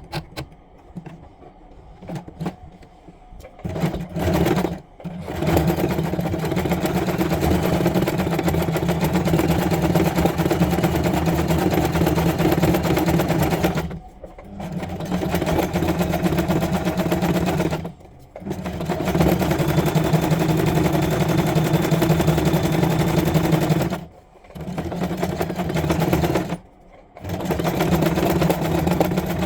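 Janome domestic sewing machine running a wide zigzag stitch. It starts a few seconds in and runs in long stretches, stopping briefly four or five times.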